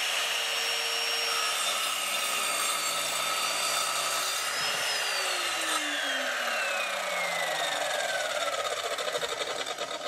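Evolution Rage4 185 mm 1250 W chop saw cutting through a wooden post at a 45-degree angle, its motor whine sagging slightly under load. About five seconds in, the trigger is released and the whine falls steadily as the blade spins down.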